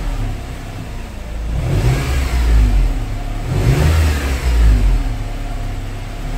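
Car engine revved from idle by two blips of the throttle, each rising to about 2,400 rpm, then settling back toward idle.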